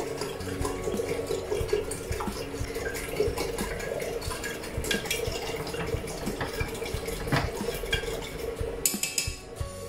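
A long stirrer being swirled around in water in a round glass fishbowl, clinking irregularly against the glass, as salt and medication drops are mixed into the water.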